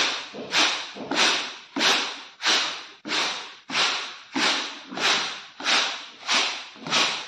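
Wheat being winnowed in a woven bamboo winnowing basket (soop). The grain rattles and swishes with each toss at an even beat, about one and a half tosses a second. Each toss starts sharply and fades before the next as the chaff and dust are shaken out.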